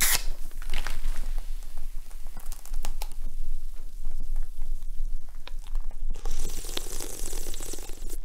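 Aluminium soda can snapped open with a sharp crack and hiss, then the drink fizzing and crackling, the hiss growing louder about six seconds in.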